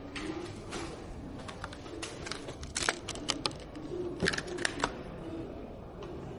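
Irregular sharp clicks and light taps of computer parts and plastic or metal pieces being handled and fitted during a PC assembly, a few at a time with short gaps between.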